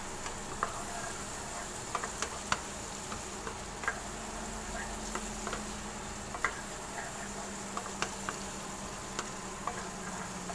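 A spatula stirring and scraping a thick sambal of fried tempeh with chicken liver and gizzard in a wok, knocking against the pan at irregular moments over a steady sizzle.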